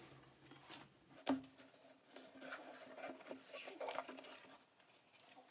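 Faint handling noises of an old cardboard box being opened: two soft knocks about a second in, then quiet rubbing and scraping as the lid is worked off.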